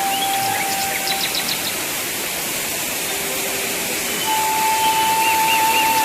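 Background music of long held notes, one fading about a second in and a higher one entering near the middle, over a steady rushing hiss.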